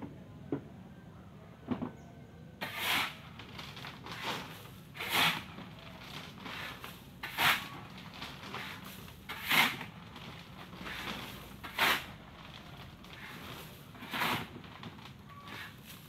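A shovel scraping into a load of gravel on a pickup truck bed and throwing it off onto a pile, a gritty rush about every two seconds. A few light knocks come in the first couple of seconds.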